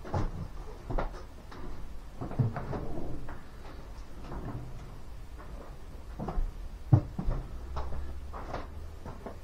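Scattered knocks and clicks of hands handling tools and parts, the sharpest about 7 seconds in, over a low steady hum.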